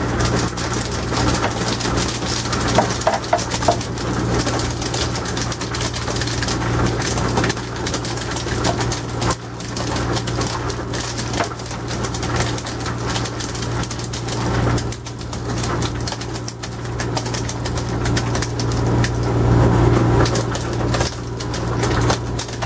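Ice-O-Matic commercial ice machine running: a steady low hum with a constant crackling, clicking clatter over it.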